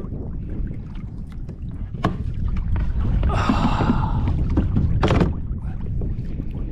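Handling noise in a fishing kayak: sharp knocks about two and five seconds in and a brief hissing burst between them, over a low steady rumble.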